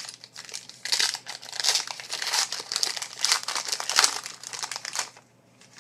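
Trading card pack wrapper crinkling as it is torn open and pulled apart, in dense crackly bursts that stop about five seconds in.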